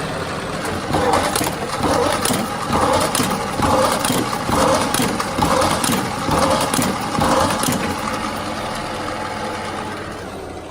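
High-speed paper drilling machine running steadily, with about eight crunching drilling strokes roughly a second apart as the bit is pressed down through the stack.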